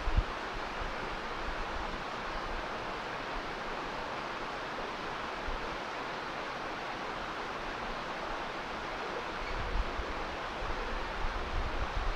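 Steady rush of a shallow mountain stream running over rocks, with wind buffeting the microphone briefly at the start and again near the end.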